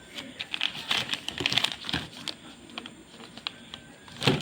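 Handling noise: crinkling and irregular light clicks as something is handled by hand, with a louder click near the end.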